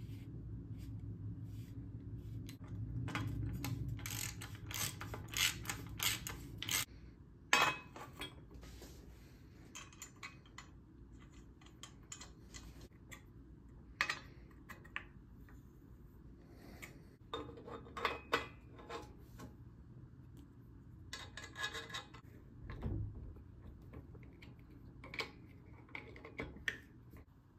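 Scattered metal clicks, clinks and short rattles of bicycle parts and hand tools as a square-taper crankset with its chainring is fitted to the bottom bracket and the crank bolt is turned with a hex key. A low hum runs under the first seven seconds or so, then stops.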